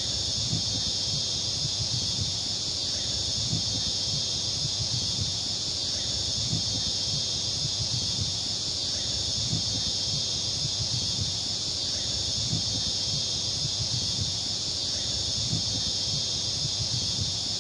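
A steady, loud insect chorus: a continuous high, shrill drone that never breaks, with a faint low rumble underneath.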